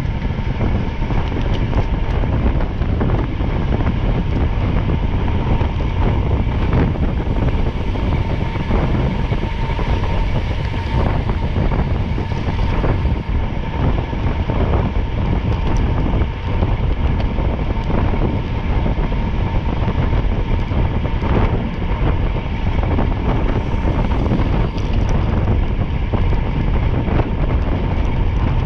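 Steady, loud rumble of a vehicle under way, with a faint steady whine and irregular gusts of noise over it.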